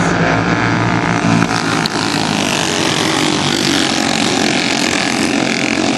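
Race cars' engines running at racing speed, several cars at once, making a loud, steady drone.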